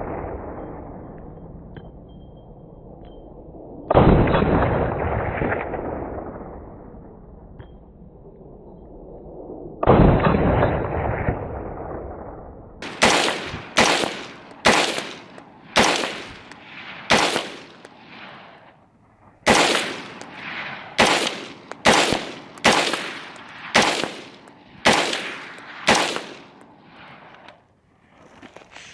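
5.56 LWRC IC-DI AR-15 rifle with a Muzzle Thumper muzzle device being fired. Two single shots six seconds apart, each trailing a long rolling echo, then about twenty quick shots at roughly one to two a second, with a short pause partway through, ending a few seconds before the close.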